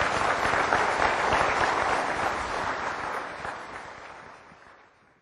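Audience applauding, dense clapping that fades away over the last couple of seconds.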